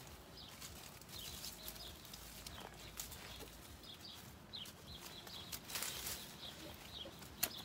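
Small hand trowel scratching and scraping in dry soil and dead grass, with a sharper click near the end. Faint short bird chirps come and go throughout.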